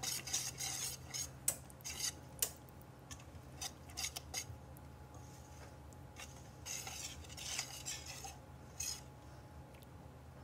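Wire whisk stirring thick, wet grated-cassava batter in a stainless steel bowl, with irregular scrapes and clinks of the wires against the metal.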